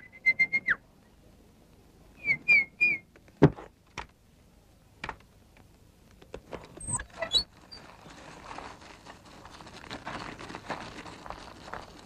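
Cartoon sound effects: a short warbling whistle at the start, then three quick whistled chirps and a few clicks and knocks. A couple of quick rising squeaks follow, then a soft, even rustling hiss through the last four seconds.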